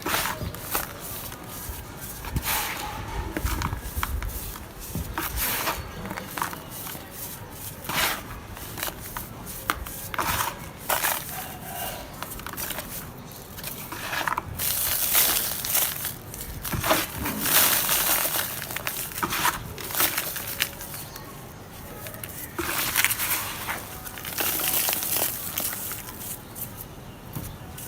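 Chunks of dry red dirt being crushed and crumbled to powder, with irregular crunching and crackling. The crunches come in uneven bursts, with the loudest stretches about halfway through and again near the end.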